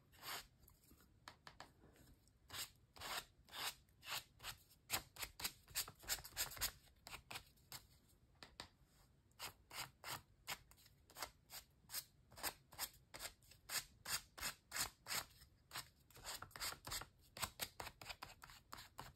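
Repeated short, faint rubbing strokes of silver acrylic paint being worked over a honeycomb stencil onto a paper page, at an uneven pace of one to three strokes a second.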